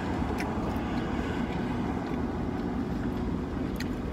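Steady low rumble inside a car's cabin, with a few faint clicks.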